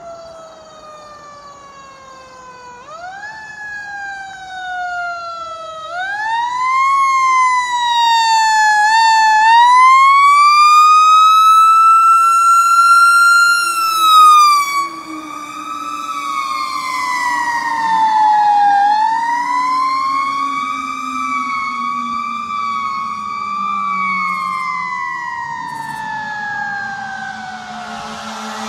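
Fire engine siren wailing in long, uneven rising and falling glides as the truck approaches. It is loudest about halfway through as it passes, then drops in pitch and fades as it moves away.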